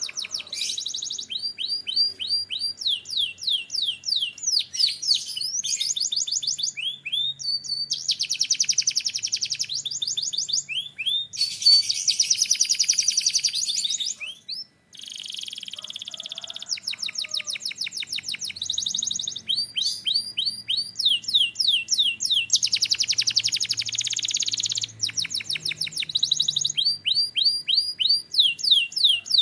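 Canary singing continuously: phrases of rapidly repeated sweeping notes alternating with dense buzzing trills, with a short break about halfway through.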